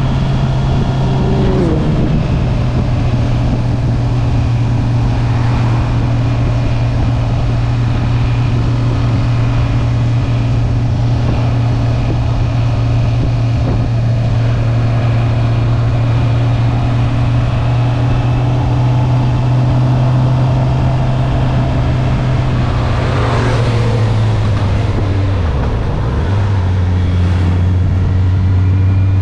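Stock Honda CB650R inline-four engine and exhaust under way at a steady engine speed, with wind and road noise. About three-quarters of the way through, the engine note drops in pitch and settles at a steady lower note.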